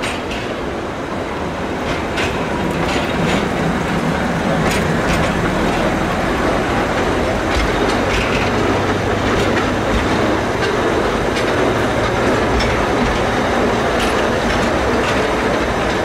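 Small narrow-gauge forest railway train, a locomotive hauling passenger cars, running along the track: a steady rumble with wheels clattering over the rail joints and scattered sharp clicks. It grows a little louder over the first few seconds, then holds steady.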